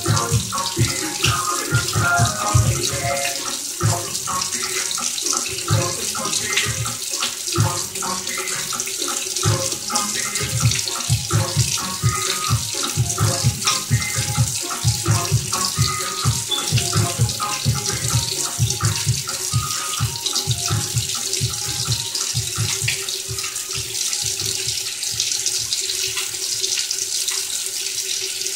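Whiting frying in hot oil in a pan, a steady sizzle, over background music with a regular low beat.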